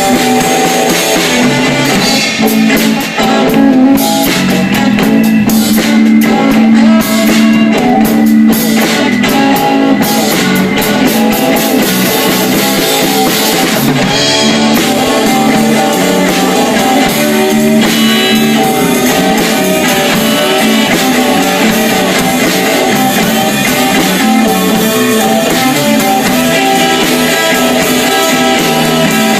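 Live blues trio playing without vocals: guitar over bass and a drum kit.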